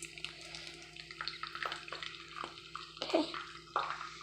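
Dry popcorn kernels being poured into a cooking pot, a light patter of many small ticks and rattles.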